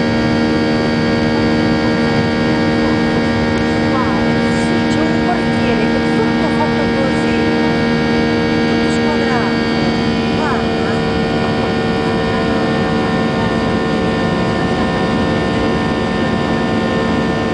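Cabin noise of a Boeing 737-800 climbing out after takeoff: its CFM56 jet engines make a steady, loud drone with several steady tones over the rush of air.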